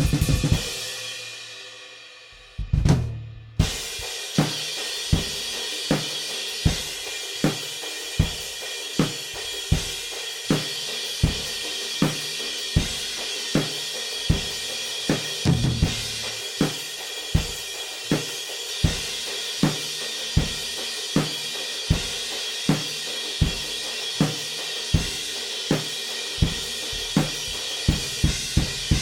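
Drum kit recorded with a single wall mic and played through a Lindell Audio 7x-500 FET compressor. A cymbal dies away, a short fill comes about three seconds in, then a steady groove of kick and snare hits about every three-quarters of a second under a constant cymbal wash.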